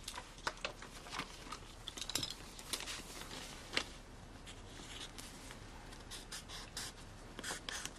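Pen writing on a paper envelope: short, irregular scratchy strokes with light taps and paper rustling.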